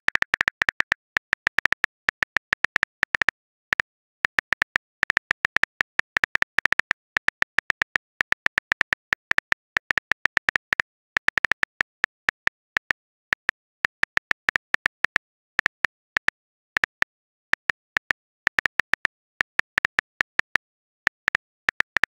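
Phone on-screen keyboard typing clicks: one short tick per keystroke, in quick uneven runs of several a second, with brief pauses between runs.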